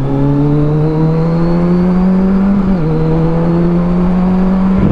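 Kawasaki Versys 1000 SE's inline-four engine, breathing through an Arrow touring exhaust, pulling under load with a slowly rising pitch. It upshifts about two and a half seconds in and then holds a steady pitch.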